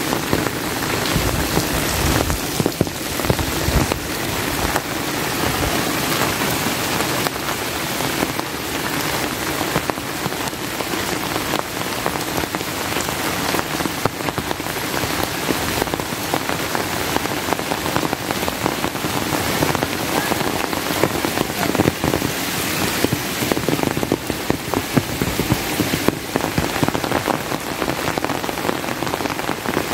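Steady heavy rain: a dense hiss of falling rain with many close raindrops pattering.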